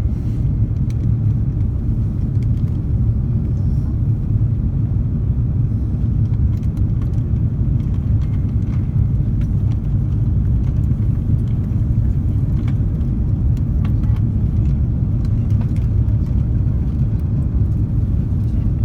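Steady low rumble of airflow and engines heard inside the cabin of an Airbus A330-300 on approach, with a few faint clicks.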